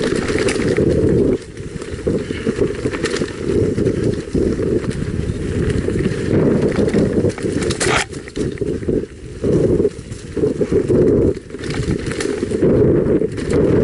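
Mountain bike descending a forest dirt trail: continuous muffled rumble and rattle of the tyres and frame over the bumpy ground, with uneven clattering knocks and one sharper knock about eight seconds in.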